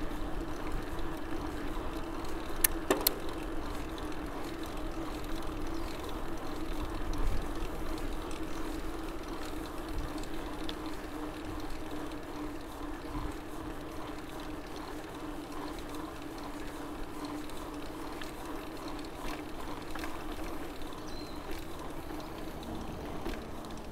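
Mountain bike rolling along a paved street: a steady hum from the tyres over rolling noise, with two sharp clicks about three seconds in.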